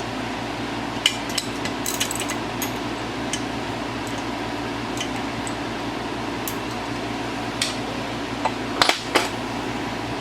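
Hand tools clinking and tapping against the metal of a Honda engine's cylinder head as it is taken off, in scattered sharp clicks with two louder knocks near the end, over a steady hum.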